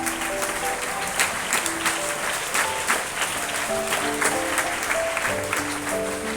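Audience applauding, irregular hand claps over an instrumental melody of held notes playing in the background.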